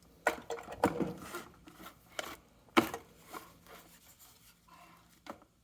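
Irregular sharp crackles and snaps from the loose power-plug connector on the back of a USB-C power supply arcing as the plug goes in. The strongest snaps come about a third of a second in, near one second and near three seconds. It is the sign of a connector come loose from the circuit board inside, making a poor connection.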